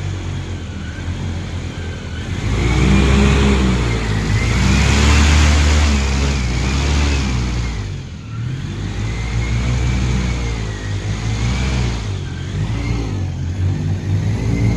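Airboat engine and propeller running under changing throttle, the pitch rising and falling. It is loudest for several seconds in the first half, eases off briefly about eight seconds in, then picks up again.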